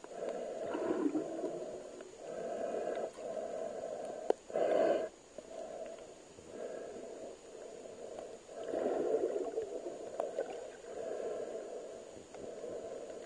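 A diver's breathing heard underwater: rough gurgling breaths and bubbles, muffled, coming every second or two, with one louder burst about a third of the way in.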